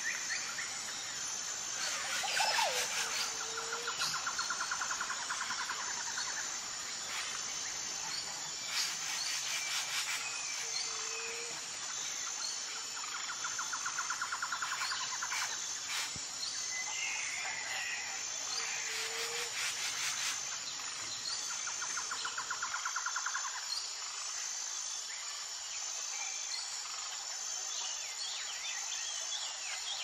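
Tropical jungle ambience of birds and insects. A steady high pulsing insect chorus runs throughout. Over it a bird repeats a rapid trill several times, about every six seconds, with short low calls and bursts of clicking.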